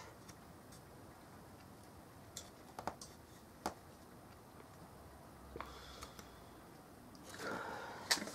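Faint, sparse clicks of a hobby knife blade cutting and scraping a plastic model-kit part, a few ticks spaced a second or so apart, with a short hiss near the end.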